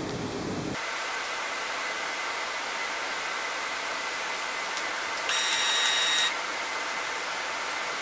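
HP LaserJet M234sdw laser printer restarting during a power cycle: a steady hiss, and about five seconds in a one-second high whine from its motor as the mechanism initialises.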